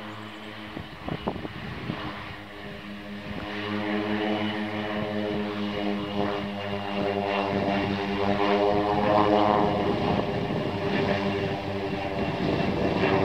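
A de Havilland Canada DHC-6 Twin Otter flies low past, with the steady drone of its two PT6A turboprop engines and propellers. The drone grows louder as the plane nears and is loudest about nine seconds in.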